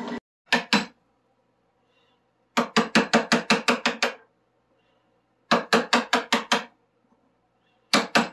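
Wooden mallet striking the handle of a carving gouge to hollow out the bowl of a wooden spoon blank. The strikes come in four quick bursts of about seven a second, with short pauses between them.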